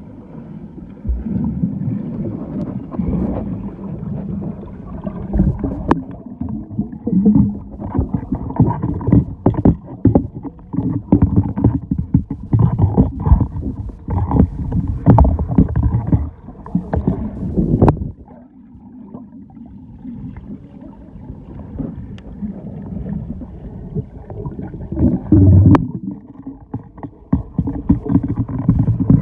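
Water sloshing and splashing close to the microphone in uneven surges, with scattered knocks, easing off for several seconds past the middle before picking up again.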